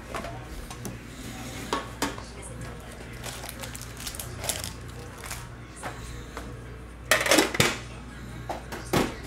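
Foil trading-card packs and a card tin with a plastic tray being handled on a table: scattered light clicks, knocks and crinkles. A louder burst of crinkling comes about seven seconds in, and a sharp knock comes near the end.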